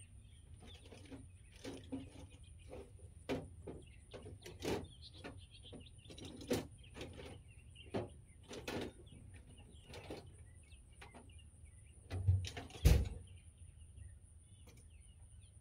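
Birds chirping, with scattered light clicks and knocks throughout and a heavier low thump about thirteen seconds in.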